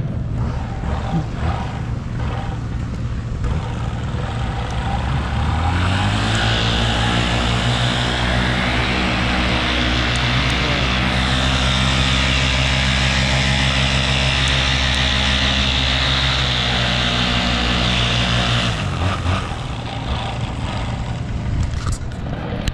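Paramotor engine running at a low idle, then throttled up about five seconds in and held at a steady higher speed with propeller wash for some thirteen seconds, before dropping back to idle near the end.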